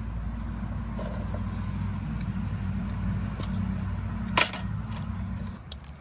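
A vehicle engine running with a steady low hum, cutting off shortly before the end, with a sharp click about four and a half seconds in.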